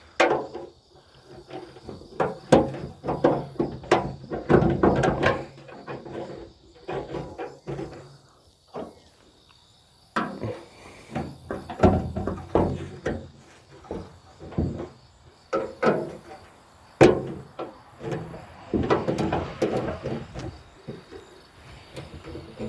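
Irregular clicks, knocks and clanks from hand work on a pickup's steel front fender and its mounting bolts as it is fitted and adjusted, coming in bunches with a short lull about eight seconds in.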